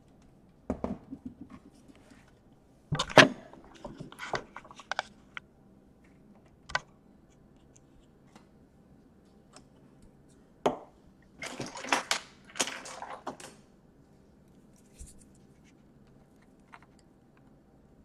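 Scattered clicks, knocks and clatter of hand tools and a laptop's plastic base being handled on a work table, loudest about three seconds in, with another cluster of clatter around twelve seconds.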